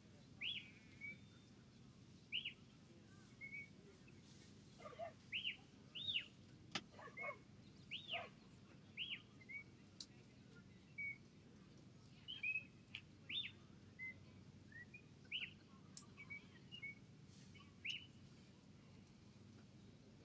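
Small birds chirping: short, arched chirps repeated about once a second, over a faint low background noise.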